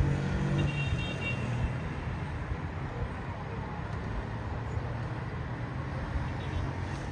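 Road traffic: a steady wash of car engines and tyres on the street, with one vehicle's low engine hum louder in the first second or so.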